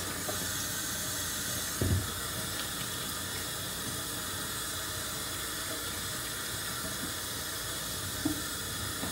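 Tap water running steadily into a stainless steel kitchen sink while hands are washed under it, with a dull knock about two seconds in.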